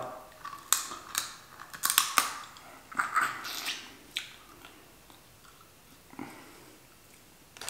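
Close-miked chewing and wet mouth sounds of a man eating crab leg meat, with several sharp smacks scattered through the first half. It goes mostly quiet after about four seconds, with one more smack near the end.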